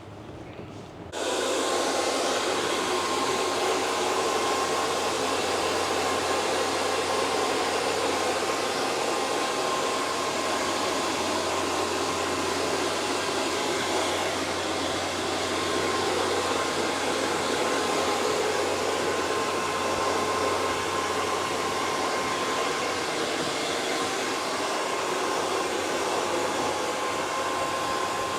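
Hair dryer switched on about a second in and running steadily: a constant rush of air with a faint steady whine.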